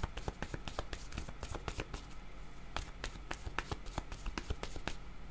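A deck of cards being shuffled by hand: a quick, irregular run of card clicks, several a second.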